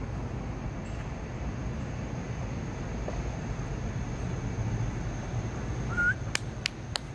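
Steady low rumble of outdoor background noise with a faint steady high tone. A short rising chirp comes about six seconds in, followed by a few sharp clicks.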